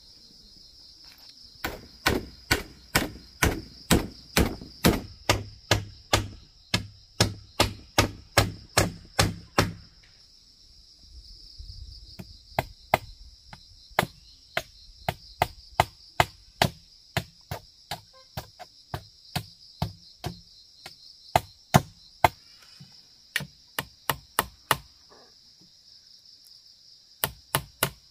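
Hand hammer driving nails into wooden poles, sharp strikes at about two a second, with pauses near the start and about ten seconds in. A steady high insect drone runs underneath.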